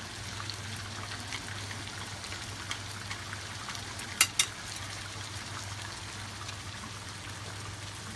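Tomatoes frying in oil in a pan: a steady sizzle with small crackles over a low hum. About four seconds in come two sharp clicks in quick succession, the loudest sounds here.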